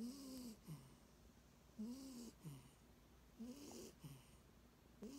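Soft, wheezy snoring in a steady rhythm, about one snore every second and a half: each a pitched in-breath that rises and falls, followed by a short, lower falling sound.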